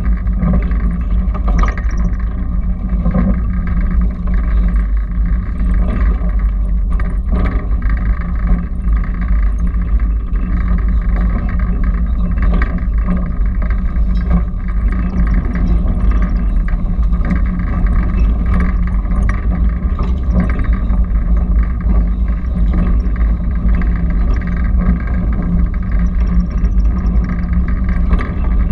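Electric trolley car running along its track: a steady low rumble with a hum, and scattered clicks and knocks from the wheels on the rails.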